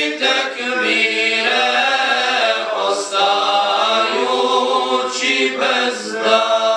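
Group of male voices singing a Bosnian ilahija, an Islamic devotional hymn, a cappella, with long held notes that bend in pitch.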